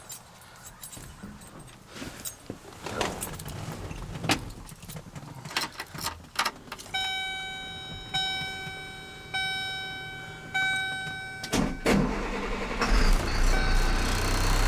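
Keys rattling and clicking in the cab, then a dashboard warning chime sounding four times about a second apart. Near the end the truck's Caterpillar C7 diesel engine cranks, starts and runs with a low, steady rumble.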